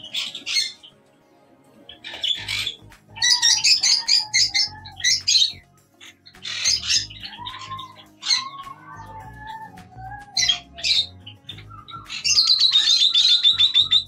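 Lovebirds squawking: shrill, harsh chattering calls in repeated bursts, ending in a long run of rapid squawks about twelve seconds in.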